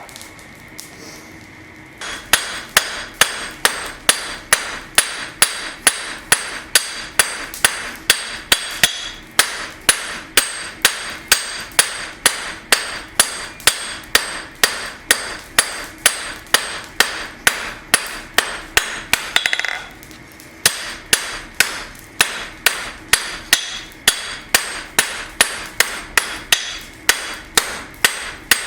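Blacksmith's hand hammer striking a steel knife bar on an anvil at a steady pace of about two blows a second, each blow followed by a metallic ring, drawing the bar out longer. The blows start about two seconds in and break off briefly near the twenty-second mark.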